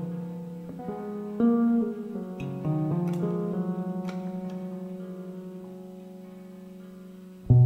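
Solid-body electric guitar, played with a capo, picking a few chords that ring on and slowly die away; a much louder strummed chord comes in right at the end.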